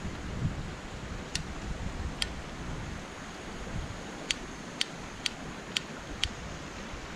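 Piezo igniter on a Jetboil camp stove clicking as it is worked to light the burner: two single clicks, then five more in a row, about two a second.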